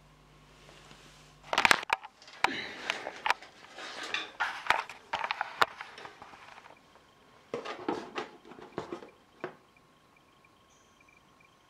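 Handling noise as a handheld camcorder is picked up and carried: a burst of sharp clicks and knocks about one and a half seconds in, then several seconds of rustling and scraping knocks, and a second cluster of knocks a little before the end. A low hum cuts off at the first clicks.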